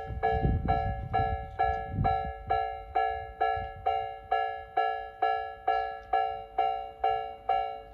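Electronic railway level-crossing alarm sounding, a repeating ding of about two and a half strikes a second, each strike decaying before the next. A train's low rumble fades out in the first couple of seconds.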